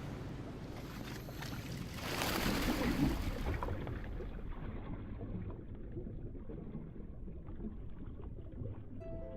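Wind and water noise aboard a small boat, then a loud splash about two seconds in as a diver goes into the sea, after which the sound turns dull and muffled, as heard underwater.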